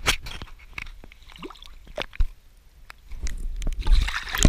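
A few knocks and rustles of handling, then, from about three seconds in, water sloshing and splashing close against the camera as it dips to the pond surface with a largemouth bass being let back into the water.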